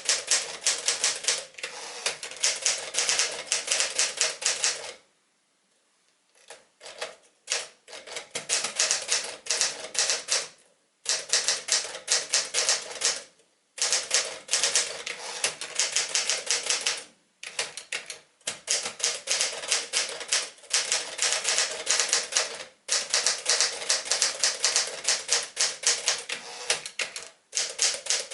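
Typing on a 1965 Smith-Corona Sterling 5AX manual typewriter: fast runs of sharp key strikes, several a second, broken by short pauses, with a longer silent pause about five seconds in.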